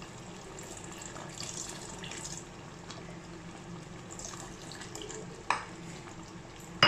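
Tamarind water poured in a thin stream into a pot of simmering sambar, trickling and splashing onto the surface. Two sharp knocks come near the end, the second louder.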